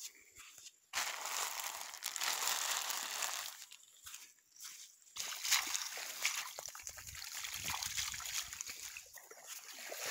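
Shallow river water sloshing and splashing, as of feet wading through it. It starts suddenly about a second in, drops away briefly around four seconds, then picks up again.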